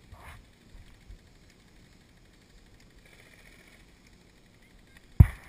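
A single sharp knock about five seconds in, with a few faint taps and rustles before it.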